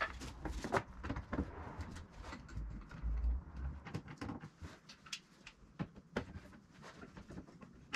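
Pipe clamps being set and tightened on a freshly glued wooden frame: scattered light clicks and knocks of metal clamp heads and jaws against the pipes and the timber.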